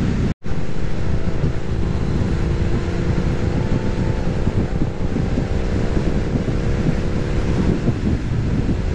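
Heavy wind buffeting the microphone on a moving motorcycle, with the steady hum of the Harley-Davidson Street Rod's V-twin faintly under it. The sound cuts out for a split second near the start.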